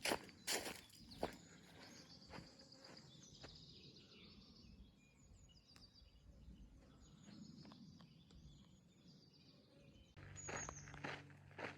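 Footsteps on a path for about the first second, then small birds chirping and calling in the quiet. Footsteps start again near the end, joined by a low steady hum.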